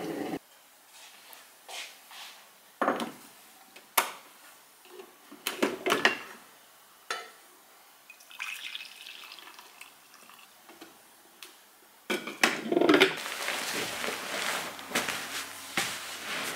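Clinks and knocks of a glass coffee carafe and a ceramic mug being handled, then coffee poured from the carafe into the mug. In the last few seconds a denser rustling noise takes over.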